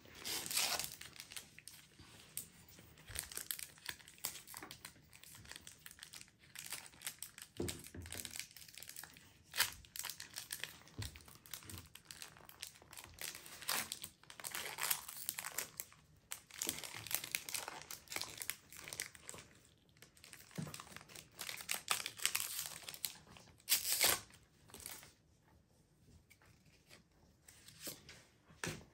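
Foil Pokémon booster pack wrapper being torn open and crinkled by hand, in irregular bursts of crackling that die down near the end.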